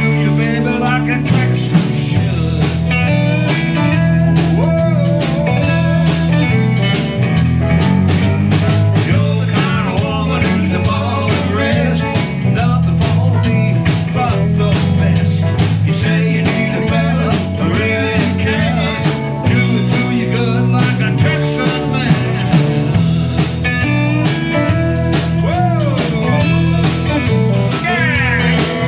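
A live rock band playing a blues-rock groove on electric guitars, electric bass and a drum kit, with a steady bass line and regular drum hits throughout.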